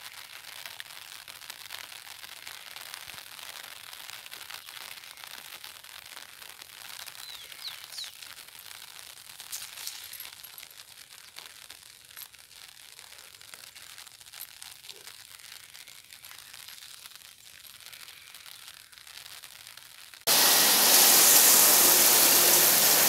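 A soft, steady hiss with scattered light crackles. About twenty seconds in, it cuts suddenly to loud, heavy rain pouring down.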